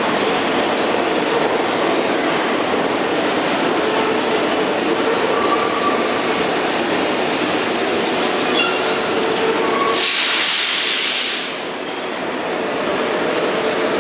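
New York City subway train running through the station: a steady rail rumble and clatter with faint squealing tones, and a sharp hiss lasting about a second and a half, about ten seconds in.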